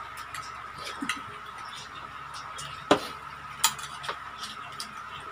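Spoon clinking and scraping against a plate a few times, one sharp clink about three seconds in loudest. A faint steady high tone runs underneath.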